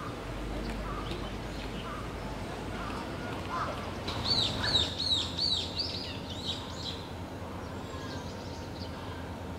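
A songbird singing a quick run of about six short, falling high notes about four seconds in, with fainter scattered chirps before it over a steady background hum.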